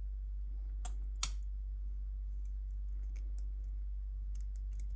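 Small sharp clicks from handling a plastic-cased variable capacitor and hook-type test-lead clips on its lugs: two louder clicks about a second in, then scattered faint ticks, over a steady low hum.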